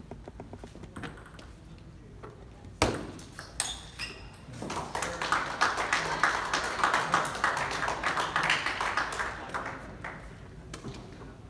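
Table tennis ball bouncing with light pings and clicks, and a sharp knock about three seconds in. A dense patter of crowd noise follows for several seconds in the middle, then dies away.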